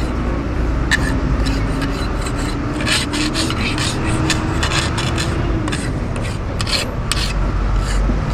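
Long hand file scraping back and forth over a workpiece held on an anvil, in repeated irregular strokes, several a second.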